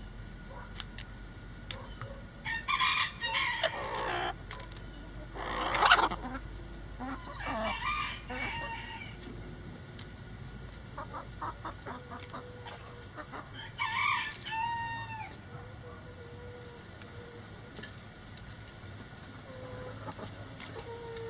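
Backyard roosters crowing among clucking hens: loud calls from about three to nine seconds in and another around fourteen seconds, with a short run of quick ticks near twelve seconds.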